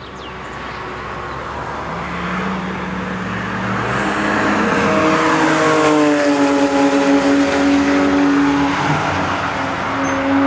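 Porsche 997 GT3 RS's naturally aspirated flat-six engine as the car approaches, passes and pulls away. The engine note grows louder and drops in pitch as it goes by about five or six seconds in, then holds steady and loud as the car drives off.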